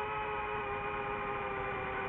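DJI FPV drone's motors and propellers whining at a steady pitch that sinks slightly.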